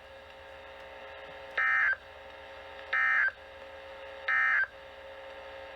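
Three short, identical bursts of warbling digital data tones from a NOAA Weather Radio broadcast, each about a third of a second long and about 1.3 seconds apart, over a faint steady hum. This is the SAME/EAS end-of-message code, signalling that the severe thunderstorm warning broadcast has ended.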